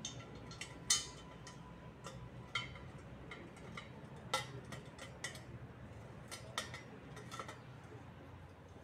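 Light, irregular clicks and clinks of white square-tube metal frame pieces knocking together as they are handled and fitted. The loudest click comes about a second in, and they thin out near the end.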